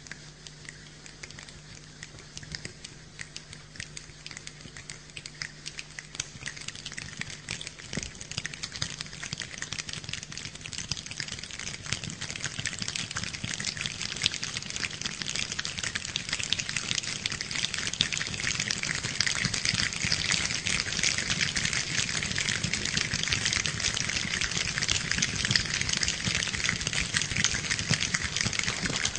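Imitation rain made by many people with their hands: a dense patter of finger snaps and clicks that keeps thickening and growing louder, like rain coming on.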